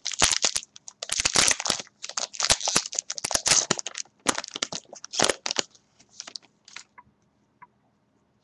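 A football trading-card pack wrapper being torn open and crinkled by hand, in rapid bursts for about five and a half seconds, then a few faint clicks and rustles as the cards are taken out.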